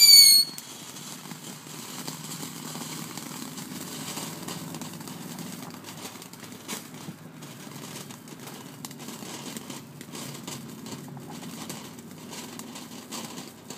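Consumer firework: a loud whistle falling in pitch cuts off about half a second in. Faint, irregular crackling follows for the rest.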